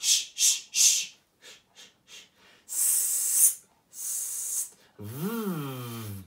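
A man's vocal warm-up sounds: three quick hissing bursts, a few faint clicks, two longer hisses, then near the end a voiced glide that rises and falls in pitch like a siren.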